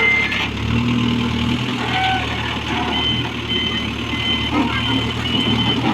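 JCB backhoe loader's diesel engine running steadily at work. From about halfway through, a short high beep repeats roughly twice a second.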